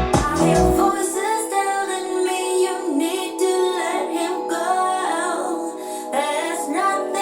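A pop song with a female voice singing, played back through a pair of Yamaha NS-100 two-way bookshelf speakers as an audio test. The bass drops away about a second in, leaving the voice and the higher instruments.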